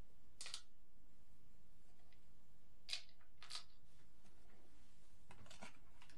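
A few small, sharp clicks and scrapes of screws and housing parts being handled on a Sokkia LP310 rotating laser during reassembly, spaced a second or more apart, over a faint steady hum.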